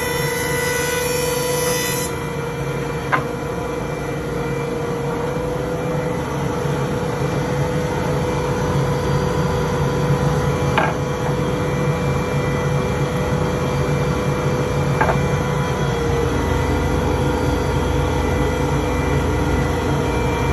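Laguna PX-20 thickness planer running steadily with a constant hum as a pine board feeds through it. The sharper hiss drops away about two seconds in, and three light knocks come along the way.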